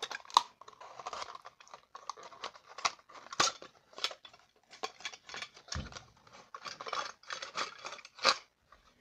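A small cardboard box being opened and handled: a run of rustling, scraping and sharp clicks from the flaps and packaging, with a low thump about six seconds in.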